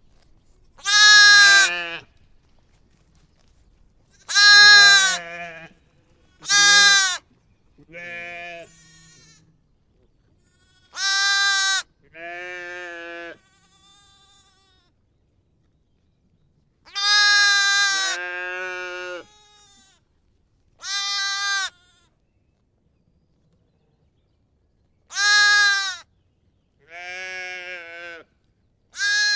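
Lamb and sheep bleating: about a dozen separate calls, each about a second long, some loud and some softer, with pauses of a few seconds between them.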